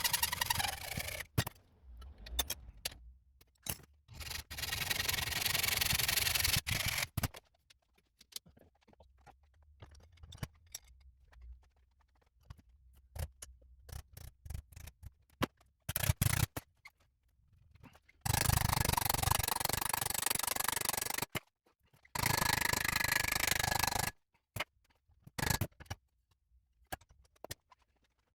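Abrasive work on metal: spells of rubbing, rasping noise a few seconds long, with quiet gaps and a few sharp clicks between them.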